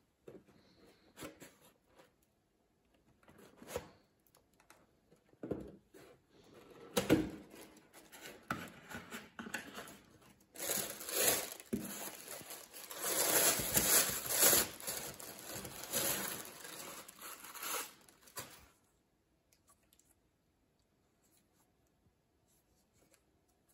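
A cardboard shoebox handled and opened with light knocks and scrapes, then tissue paper wrapping rustling and crinkling for about eight seconds as it is pulled apart from around the flip-flops. It stops about five seconds before the end.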